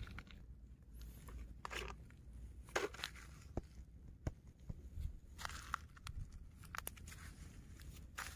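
Footsteps crunching on a beach of broken shells, pebbles and wet sand, in short irregular crunches with a few sharp clicks, over a low steady rumble.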